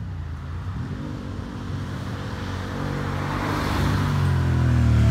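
Porsche sports car engine accelerating toward the microphone, its pitch climbing and the sound growing steadily louder, loudest at the end.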